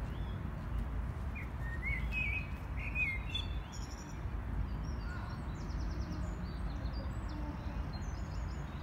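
Birds chirping and calling over a steady low rumble. A few gliding calls come in the first half, then higher, quicker chirps later on.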